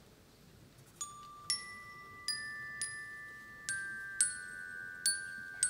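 A glockenspiel plays a slow, high melody of single struck notes, starting about a second in. Each note rings on under the next, building a shimmering chord. This is the instrumental introduction to an orchestral song.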